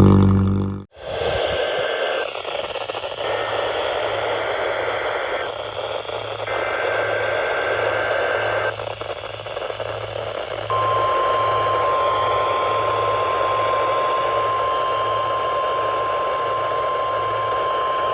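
Off-air NOAA Weather Radio test signal over steady radio hiss. After a loud musical clip cuts off just under a second in, three bursts of SAME header data tones sound. The steady 1050 Hz warning alarm tone starts about ten seconds in.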